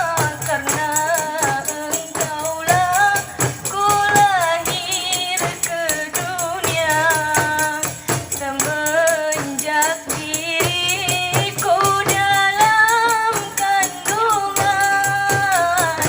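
Qasidah music: a sung Arabic-style melody with ornamented, wavering notes over fast, steady hand percussion with jingles, typical of rebana frame drums and tambourine.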